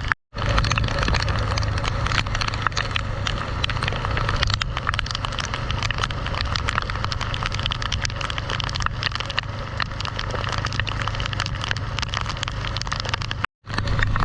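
Motorbike riding in heavy rain: a steady low engine and road hum under a dense crackle of raindrops striking the microphone. The sound cuts out briefly twice, once just after the start and once near the end.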